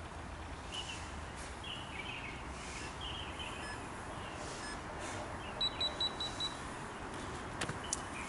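Outdoor city ambience: a steady low hum and hiss with faint bird chirps in the first few seconds. A quick run of four short, high beeps comes about two-thirds through, and a few light clicks come near the end.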